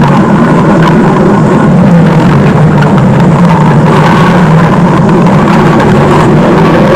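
Loud stomach growl sound effect: a steady, unbroken low rumble that wavers a little in pitch.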